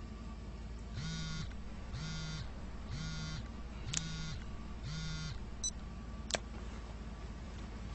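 Mobile flip phone buzzing with an incoming call or message. It gives five short buzzes about once a second, then stops, with a few sharp clicks.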